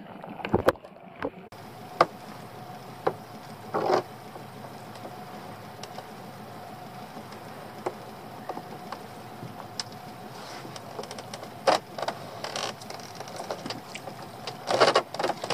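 Small boat outboard motor idling steadily, with a few sharp knocks from the rope and pot as a lobster pot is hauled up by hand.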